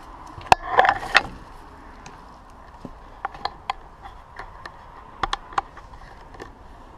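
Footsteps and handling noise: scattered sharp clicks and knocks, with a short crunching rustle about a second in, over a faint steady hiss.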